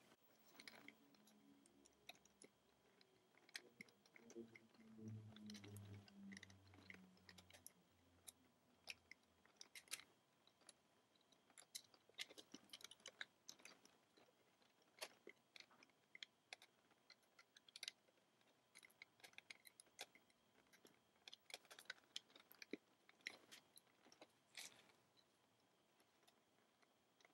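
Faint, scattered clicks and snaps of rubber bands being stretched and slipped over the plastic pegs of a SunshineLoom rubber-band loom, with a faint low hum about four to nine seconds in.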